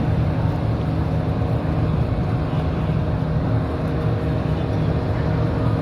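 Steady engine drone, an even low hum with a rumble under it, holding level without rising or falling.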